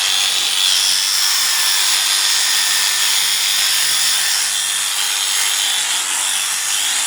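Electric sheep-shearing clippers running steadily and cutting through wool, a continuous high-pitched buzz.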